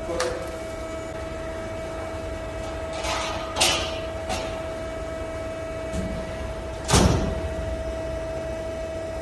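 CNC press brake humming steadily while a sheet-metal strip clatters onto its die about three and a half seconds in. About seven seconds in comes a loud metallic clunk with a heavy thud as the ram forms the door-frame bend.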